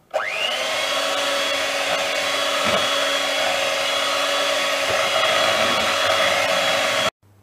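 Electric hand mixer running, its whine rising as the motor spins up and then holding steady while the beaters churn alginate powder and water in a plastic bowl. It cuts off suddenly about seven seconds in.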